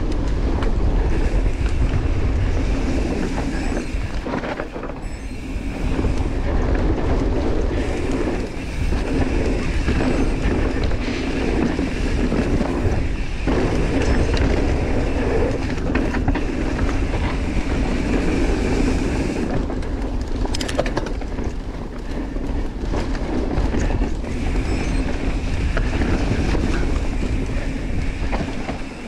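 Mountain bike descending a downhill trail at speed: a continuous rumble and rattle of the tyres over dirt and the bike's frame and chain clattering, with heavy wind noise on the microphone.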